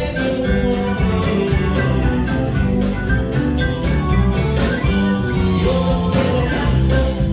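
Live band playing a dance number: drum kit, electric bass, electric guitar and keyboard, amplified through a PA, with a steady beat.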